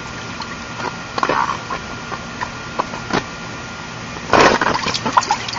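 Water sloshing and small knocks as a toddler plays in an inflatable paddling pool, with one louder splash about four and a half seconds in.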